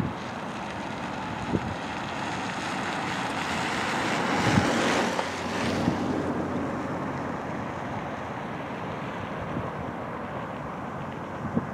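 Steady outdoor rush with wind buffeting the microphone, swelling louder for a couple of seconds about four seconds in.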